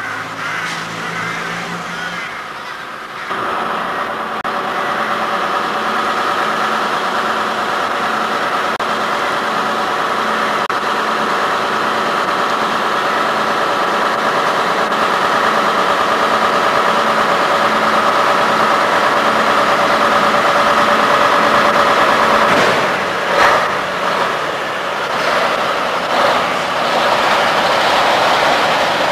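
Jelcz fire truck's diesel engine starting about three seconds in, then running at a steady idle, with a few brief changes in level near the end.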